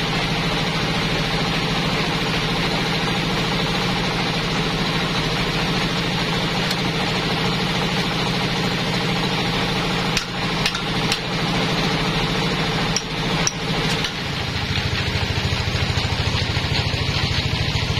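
Single-cylinder diesel engine running steadily at the sawmill, with a few sharp metal clinks and knocks about two-thirds of the way through as the log is clamped on the saw carriage. After the clinks the engine note shifts to a fuller, more evenly pulsing beat.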